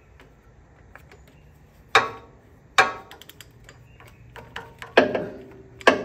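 Hand wrench clinking against metal as it is fitted and worked on the low-pressure oil pump's relief-valve plug: four sharp metallic clinks, each with a brief ring, and lighter clicks between them.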